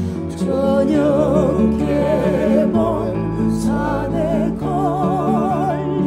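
A woman singing a Korean folk song, her voice held on long notes with strong vibrato, over a sustained accompaniment with steady bass notes.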